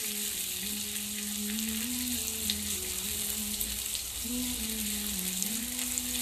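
Sliced onions frying on high heat in oil in an aluminium pressure cooker, sizzling steadily as they are stirred with a plastic spatula. A low hum that steps between a few pitches runs underneath.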